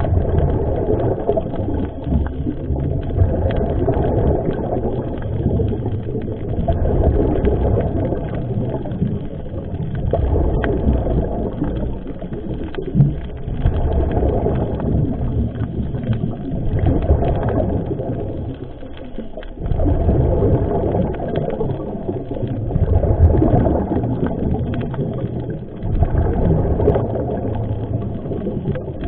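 Underwater noise of a scuba diver breathing through a regulator: a low, muffled bubbling from the exhaled air that swells and drops every several seconds, heard through a waterproof camera housing.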